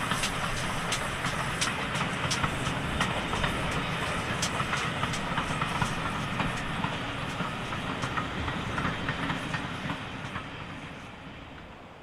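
GWR 2884-class 2-8-0 steam locomotive and its coaches rolling past close by: a steady rumble with irregular sharp clicks of the wheels over the rail joints, fading away over the last couple of seconds.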